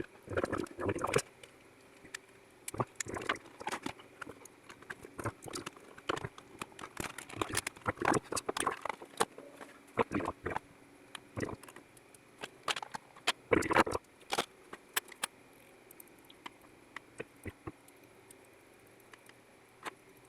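Irregular clicks, taps and knocks of small plastic parts being handled and fitted together: a touch-screen panel being put back into its plastic case, with a heavier cluster of knocks about two-thirds of the way through.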